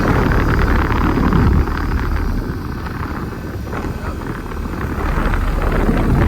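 2001 American Standard Allegiance central air conditioner condenser running, its Climatuff reciprocating compressor and fan motor going, with the fan's air rumbling on the microphone.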